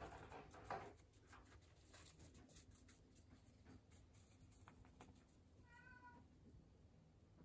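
A domestic cat gives one short meow about six seconds in, over faint room tone with a few soft clicks and taps.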